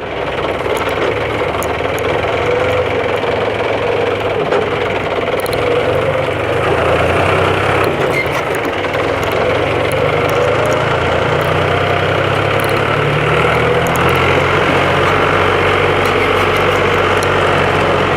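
John Deere 1130 LS tractor's diesel engine running steadily under way, heard loud from the seat, with faint clicks and rattles over the hum.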